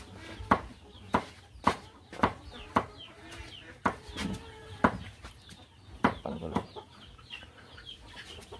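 Chickens clucking: short sharp clucks about twice a second, with thin high chirps between them.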